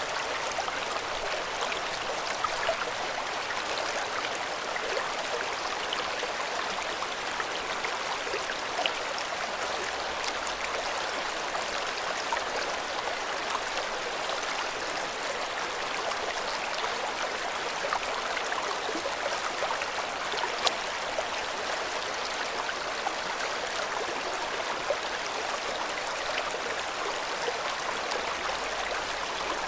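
River water running over rocks: a steady rushing and babbling, with small splashes and drips now and then.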